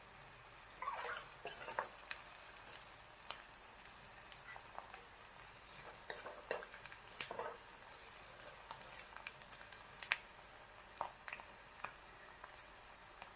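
Chopped onion, green chilli and garlic frying in oil in a pan: a steady sizzle, with a spoon scraping and tapping against the pan as it is stirred, and one sharper knock about halfway through.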